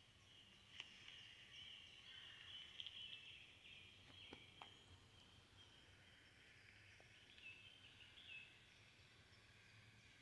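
Near silence with faint, high animal chirps from a squirrel video playing through a phone's small speaker, and a few soft clicks.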